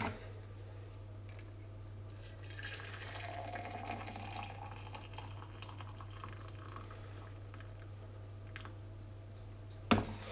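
Quiet steady low hum with faint scattered rustles and soft clicks.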